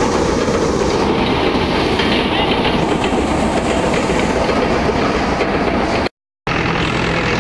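Paddy thresher running at full speed, a loud steady mechanical rattle and clatter as bundles of rice straw are fed into its drum. The sound cuts out for a moment about six seconds in, then carries on.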